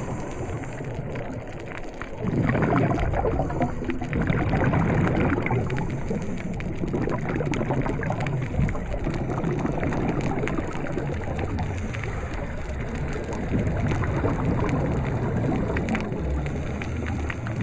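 Underwater ambience recorded by an action camera below the surface: a low watery rumble with gurgling swells that rise and ease every few seconds.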